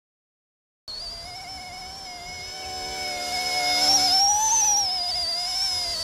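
Dead silence for about the first second, then the high whine of the RC ERA C123 scale helicopter's brushless direct-drive motors and rotors in flight. It grows louder and rises briefly in pitch around the middle before settling back.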